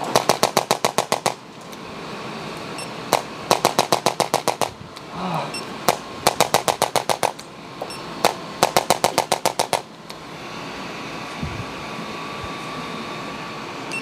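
Chiropractic adjusting instrument firing in four rapid runs of about a dozen clicks each, about eight a second, with single clicks between the runs. From about ten seconds in the clicking stops and only a steady hum remains.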